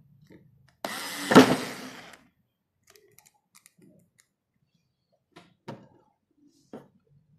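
Daewoo 3.6 V cordless screwdriver running briefly, for a little over a second, as it drives a screw into wood, with one loud knock partway through. A few faint knocks follow near the end.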